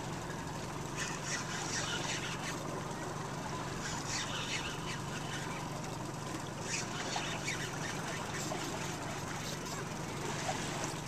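Boat engine running steadily with wind and water noise. Short, sharp high-pitched sounds come a few times.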